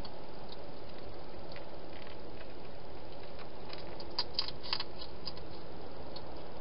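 Hedgehog eating from a bowl in a plastic feeding box: scattered small clicks, with a cluster of sharper ones a little past the middle, over a steady hiss.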